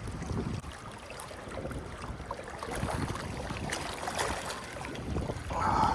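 Wind rumbling on the microphone over water lapping at the shore, with a few faint clicks.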